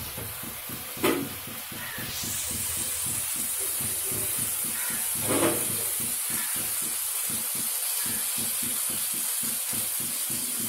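Rasgullas shallow-frying in ghee in a frying pan, a steady sizzle that gets louder about two seconds in, with two light knocks as the balls are turned.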